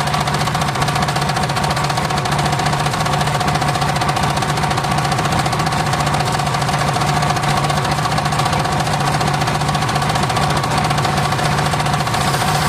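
Homemade circular sawmill running steadily under engine power: a fast, even knocking beat from the engine with a steady whine above it, unchanging throughout.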